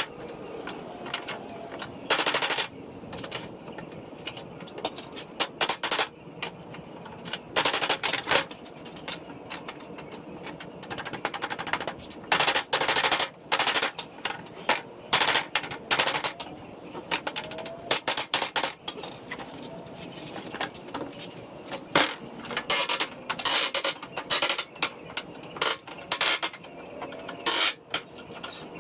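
Hammer blows on a wooden pallet, knocking the nailed-on boards loose: many sharp wood-and-nail knocks, irregular, often in quick runs of several strikes.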